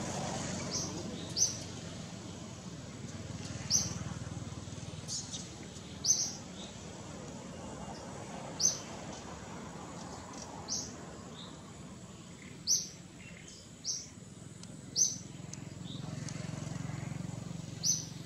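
A bird calling with short, high chirps, about a dozen of them spaced one to two seconds apart, over faint steady outdoor background noise.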